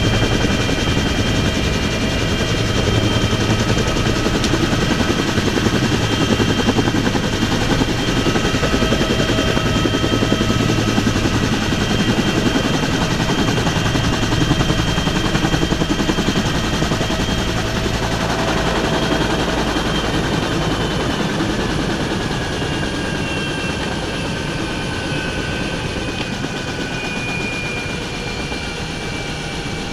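Helicopter turbine engine and rotor running on the ground, heard from inside the open cabin: a steady whine with several high tones over a heavy low rumble. About eighteen seconds in the low rumble thins out, and the whine then starts to fall in pitch as the engine spools down.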